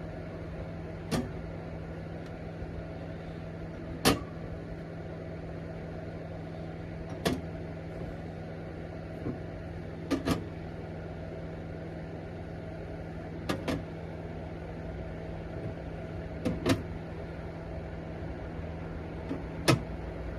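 Metal-melting furnace running with a steady hum, with a sharp metallic clink or knock every two to three seconds.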